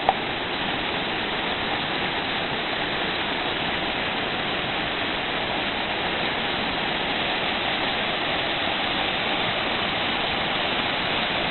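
Waterfall rushing steadily, a continuous even roar of falling water.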